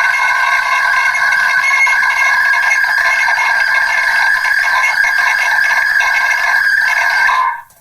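Megaphone playing back a voice recording that has been re-recorded through megaphones many times over, eroded into a steady blend of several ringing tones with no low end and no words left. It cuts off suddenly near the end.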